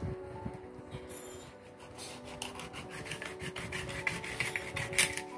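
Kitchen knife sawing through a raw rabbit's front leg at the joint, in quick rasping strokes against a wooden chopping board, busiest in the second half with a sharp knock near the end.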